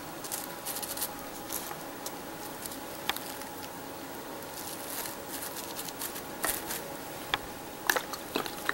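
Spoon pouring syrup over a sponge cake in a foil-lined pan: soft scattered clicks and light wet patter, with a few sharper taps near the end.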